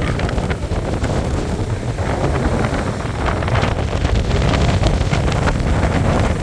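Strong hurricane wind buffeting the microphone: a loud, steady rumble with rapid crackling gusts.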